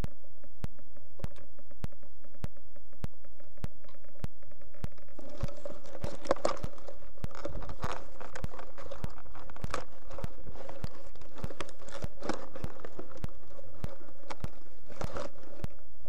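Chewing and mouth sounds of someone eating a cream pastry close to the microphone, in irregular bursts starting about five seconds in. Under it, a steady hum and evenly spaced clicks.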